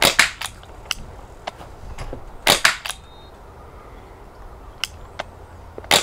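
Crosman 1077 CO2 air rifle with a 3D-printed silencer firing: sharp, snappy cracks at the start, a quick run of three about two and a half seconds in, and another at the end, with fainter ticks in between.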